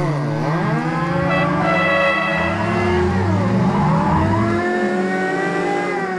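A continuous engine-revving 'vroom' sound that starts suddenly and wavers up and down in pitch, like a car being driven hard.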